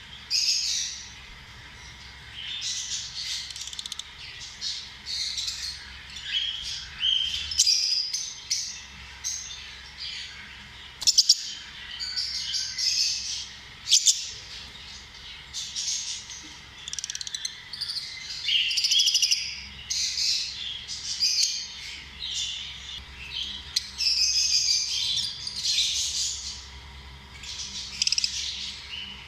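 Several lovebirds chirping in quick, shrill calls that overlap almost without pause. Two sharp clicks stand out about eleven and fourteen seconds in.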